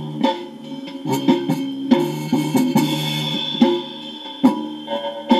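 Music with a drum beat and guitar played through a homemade loudspeaker: a hard-disk drive's head-positioning voice-coil actuator hooked by a copper wire to the bottom of a tin can. The sound is loud but a bit tinny.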